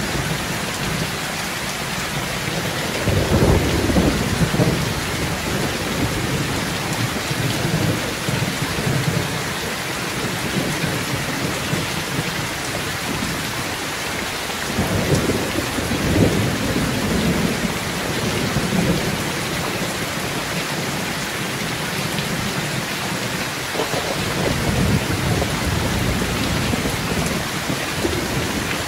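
Heavy rain pouring steadily, with thunder rumbling low three times: about three seconds in, around the middle, and again near the end.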